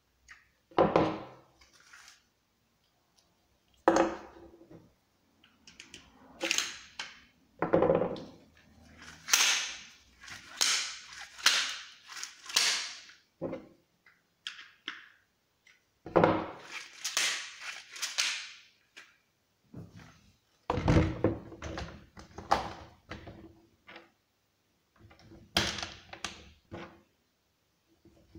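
Hands working on a Husqvarna 236 chainsaw on a wooden table: a string of separate knocks and clunks of its plastic recoil starter housing and parts against the saw and the wood, with scraping and rustling between them.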